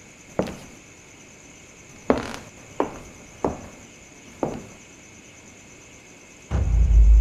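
Five sharp knocks at irregular intervals, each with a short echoing tail, over a faint steady high whine. Near the end a loud low rumble starts abruptly.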